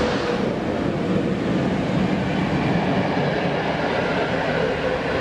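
Freight wagons of a coal train rolling past at speed, a steady rumble and hiss of steel wheels on the rails, as the rear section of the ET42 electric locomotive goes by at the start.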